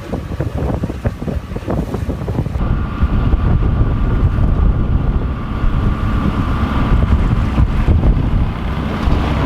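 Wind buffeting the microphone, with water rushing past a sailboat's hull while it is under way. A faint steady whine joins about two and a half seconds in.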